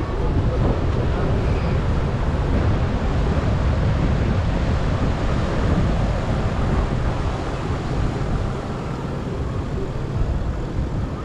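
Outdoor street ambience: a steady low rumble of wind on the microphone mixed with road traffic, with a car driving away early on, easing off slightly near the end.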